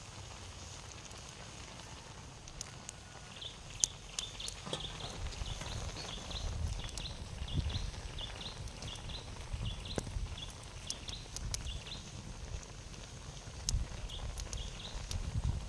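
A small animal's short high chirps, repeating about three times a second from a few seconds in, over scattered sharp clicks and low thumps.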